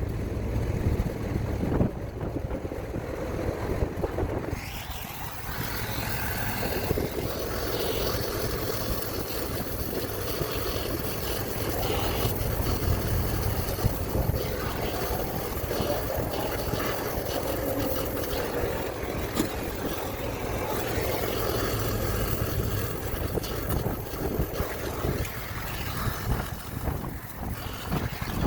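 Brazing torch hissing steadily on a copper refrigerant line being repaired, over a low steady rumble; the hiss comes in about four and a half seconds in.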